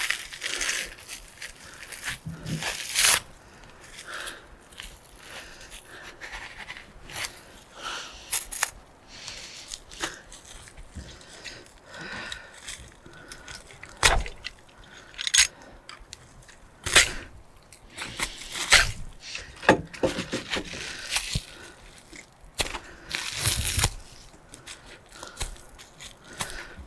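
Tight packaging being torn and peeled off a new part by hand: many separate rips, crinkles and scrapes.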